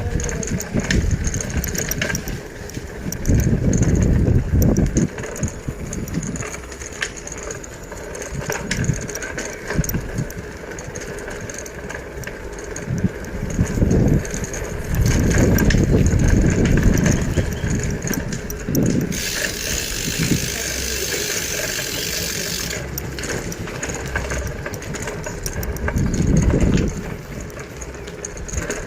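Wind buffeting and road rumble on the microphone during a bicycle ride, as uneven low gusts, with a hiss that starts and stops abruptly for about four seconds midway.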